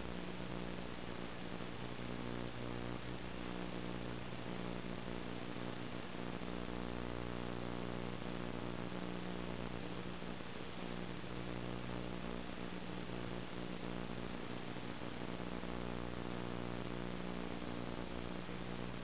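Steady electrical buzz and hiss on the audio track of an analog FPV video link as recorded by the goggles' DVR: an even hum with many overtones that does not change with the quad's throttle.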